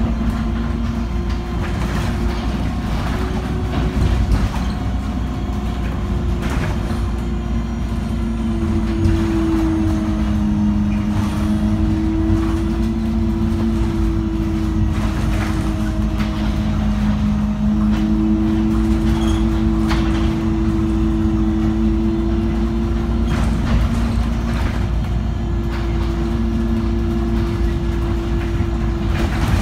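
Kowloon Motor Bus double-decker running on its route: a steady engine and drivetrain drone holding two tones that waver slightly in pitch, over a low rumble, with scattered rattles and knocks.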